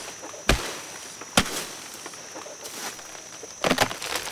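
Sharp cracks and snaps of a banana plant's soft trunk being forced over by hand: one about half a second in, another about a second and a half in, and a quick cluster near the end. A faint steady insect drone runs underneath.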